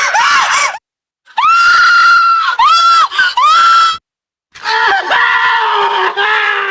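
Human screams in quick succession: the end of one scream, then a long, very high-pitched scream that breaks briefly a couple of times, then a lower-pitched scream that starts about two-thirds of the way in.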